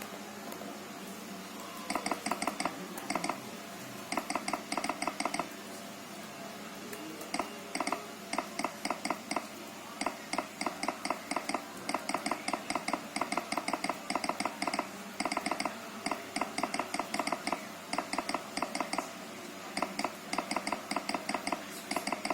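Keys of an Acer Aspire 5 laptop keyboard being typed on, clicking in quick runs of about six strokes a second with short pauses between runs.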